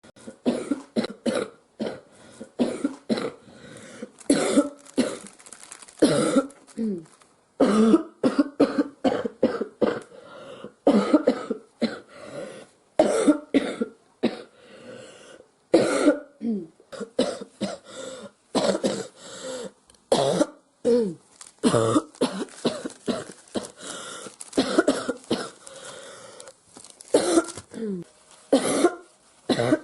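A girl coughing over and over, in quick runs of several coughs with short pauses between them. Some of the coughs are voiced and fall in pitch.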